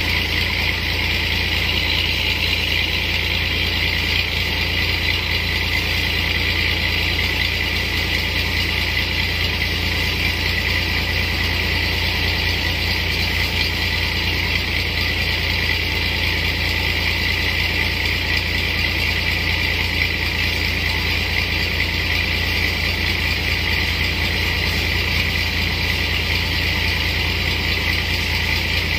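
Engine of a power sprayer running steadily at a constant speed, driving the pump that feeds a spray lance.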